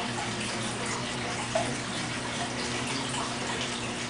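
Steady background hum with an even rushing hiss beneath it, and a faint click about one and a half seconds in.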